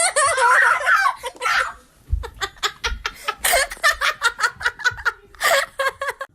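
A person laughing hard: drawn-out high laughing at first, then a run of short, quick bursts several times a second.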